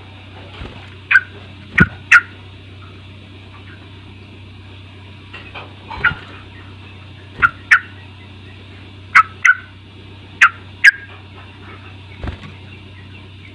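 Yellow-vented bulbul (trucuk) giving short, sharp calls, mostly in quick pairs, about eleven over a dozen seconds, over a steady low hum.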